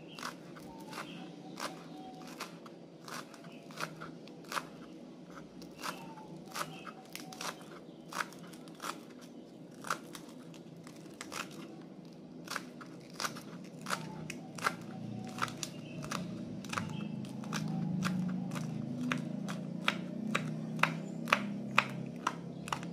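Kitchen knife chopping spring onions on a wooden cutting board: a run of short, sharp knocks, about two a second, getting quicker and louder in the second half.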